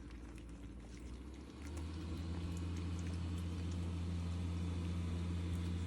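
A steady low machine hum starts about one and a half seconds in, over faint small wet clicks of young puppies lapping a soupy mix of puppy food and water.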